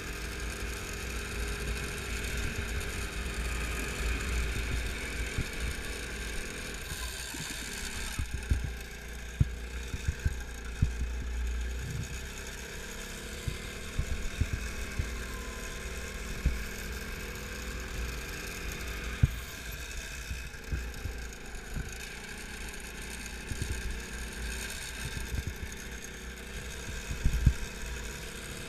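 Go-kart engine running at speed, heard onboard, its pitch rising and falling through the corners, over a steady low rumble with frequent brief knocks.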